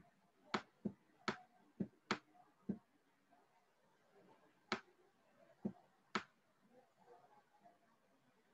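About ten short, sharp clicks at irregular intervals, mostly bunched in the first three seconds, from someone working a computer to set up an online quiz.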